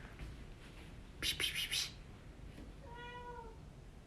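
A domestic cat gives one short meow, slightly falling in pitch, about three seconds in. A second or so earlier there is a brief burst of hissy noise in a few pulses.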